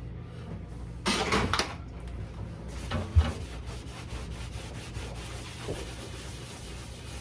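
Rubbing and scraping against the inside of a refrigerator, with a louder scrape about a second in, a knock about three seconds in, then a run of quick strokes.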